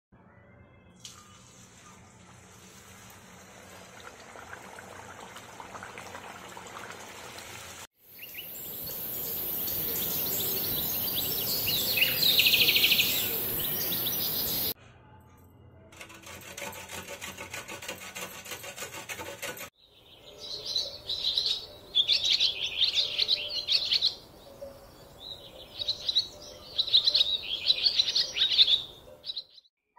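Hot oil sizzling loudly as a puri deep-fries, for about seven seconds, then cutting off abruptly. In the last third, birds chirp in repeated bursts.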